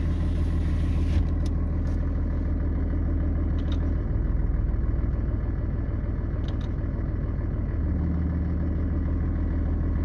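6.7L Cummins turbo-diesel inline-six idling, heard from inside the cab, with a faint steady high tone from the exhaust side: the leftover trace of an exhaust-leak squeal, much reduced after a new exhaust manifold and gaskets. The idle note shifts about four seconds in and shifts back near eight seconds.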